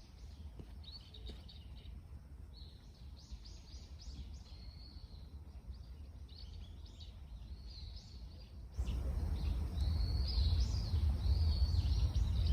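Small birds chirping and singing in short, repeated calls, over a low rumble that gets suddenly louder about nine seconds in.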